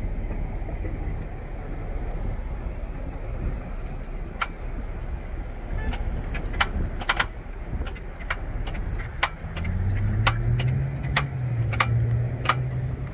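Chevrolet Malibu's starter clicking when the key is turned, sharp ticks about twice a second without the engine cranking: a sign the owner takes for a failed starter. A low steady drone comes in near the end.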